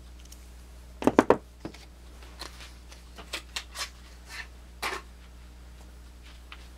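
Swiss Army knife and its packaging being handled: a quick cluster of sharp clacks about a second in, the loudest part, then a run of softer rustles and taps until about five seconds in.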